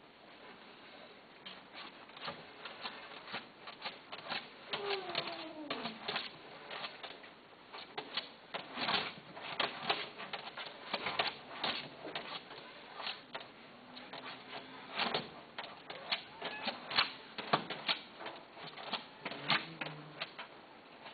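Rapid, irregular clicking and tapping, with one short falling cat meow about five seconds in.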